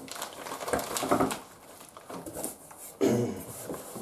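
Light rustling of plastic-bagged parts being handled in a cardboard box, with a brief low voice sound, a murmur, about a second in and a louder one near the end.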